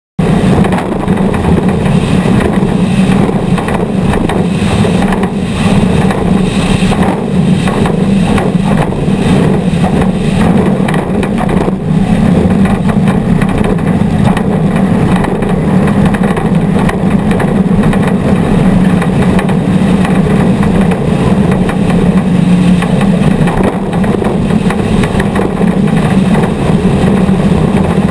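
Off-road race vehicle engine running hard at speed, loud and close as heard from an onboard camera, with a steady rumble and noise from the rough course.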